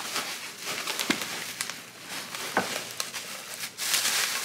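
Bubble wrap and plastic packaging crinkling and rustling as hands pull a wrapped cookware pot out of a cardboard box, with scattered sharp crackles and clicks. The rustling grows louder near the end.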